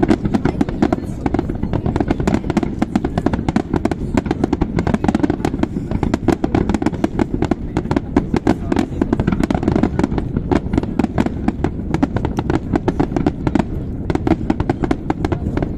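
Aerial fireworks display: shell bursts going off in a dense, rapid barrage, many bangs a second without a break.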